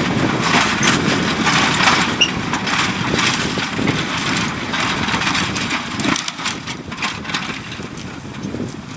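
Tractor engine working steadily as it pulls a plough through rocky ground, the sound easing off over the last few seconds.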